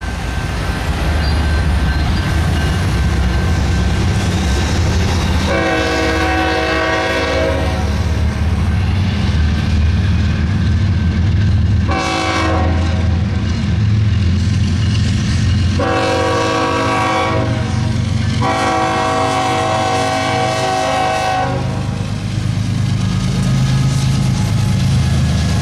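Freight diesel locomotive's air horn sounding at a grade crossing: a long blast, a short one, then two long blasts close together. Underneath, the locomotives' diesel engines rumble steadily, growing louder near the end as they pass.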